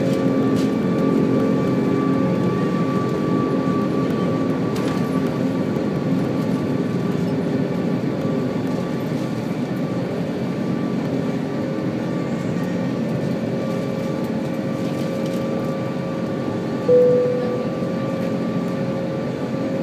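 Airbus A340-600's four Rolls-Royce Trent 500 turbofans at takeoff power, heard inside the cabin over the wing as the jet lifts off and climbs: a steady dense rumble with a faint constant whine in it. About three seconds before the end a short, loud single tone sounds and quickly fades.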